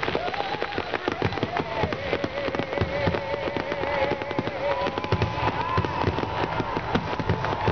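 Fireworks grand finale: rapid, overlapping bangs and crackles from many shells bursting at once. A long wavering whistle sounds over them.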